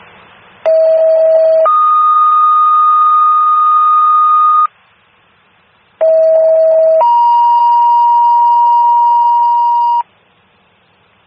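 Two-tone sequential pager tones over a fire dispatch radio channel, toning out the fire companies. Two tone pairs sound: each is a lower tone of about a second followed by a higher tone of about three seconds, and the second pair's long tone is lower than the first's. Faint radio hiss fills the gaps.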